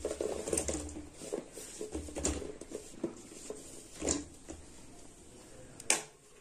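Cut drumstick (moringa pod) pieces being dropped by hand into an aluminium pot with a little liquid: irregular soft knocks, the loudest about four seconds in and again near six seconds.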